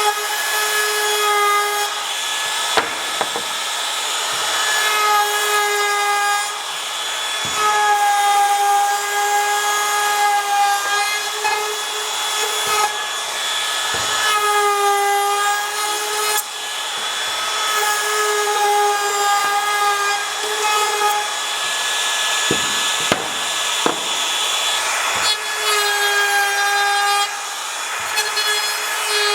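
A power tool working wood: a high motor whine that comes and goes in passes of one to two seconds over a rasping hiss, with a few knocks between passes.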